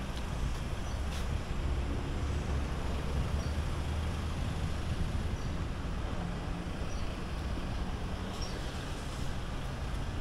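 A car running: a steady low rumble that stays the same throughout.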